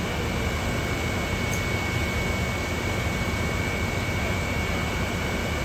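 Steady heavy drone of fire appliance engines running the pumps that feed a water jet, with a thin, constant high whine over it and no break in the noise.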